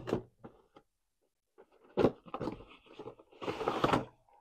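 Toy packaging being handled: a few sharp knocks, then a scraping rustle of cardboard and plastic for about half a second near the end.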